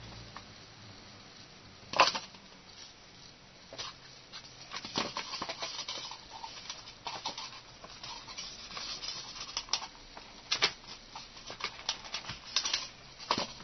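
Hands handling the robot's wiring, connectors and plastic parts: irregular clicks, taps and rustling. A sharp click comes about two seconds in, and a cluster of clicks comes near the end.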